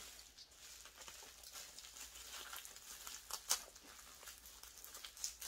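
Faint rustling and light clicks of a small cosmetic product box being handled in the hands, with one sharper click about three and a half seconds in.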